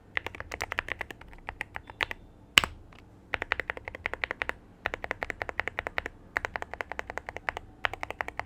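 Typing on an Akko MU01 wooden keyboard fitted with linear mechanical switches: quick runs of keystroke clacks in short bursts with brief pauses between them, and one sharper, louder stroke a little over two and a half seconds in.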